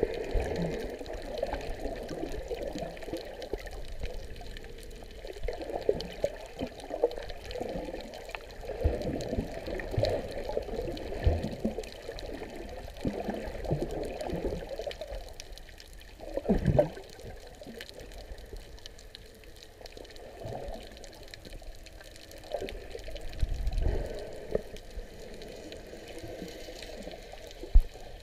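Water sloshing and swishing around a camera held just under the surface while a snorkeler swims, heard muffled, in uneven surges. A single sharp knock comes near the end.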